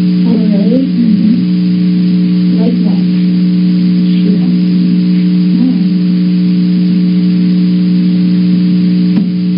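Loud steady electrical hum on a surveillance camera's audio track, with faint, muffled voices now and then under it.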